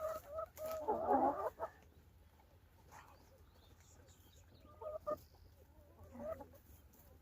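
Hens clucking, loudest in a short run about a second in, with a few softer, scattered clucks later.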